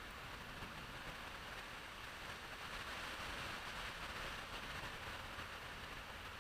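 Steady hiss of rain falling, swelling slightly around the middle.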